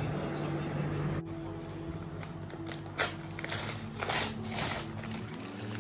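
Paper mailer bag being pulled and torn open by hand, giving several short rustles of stiff paper in the second half, over a low steady hum.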